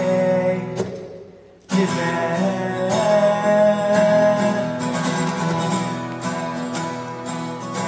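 Acoustic guitar being strummed and picked. The playing fades into a brief break about a second in, then comes back in sharply and carries on steadily.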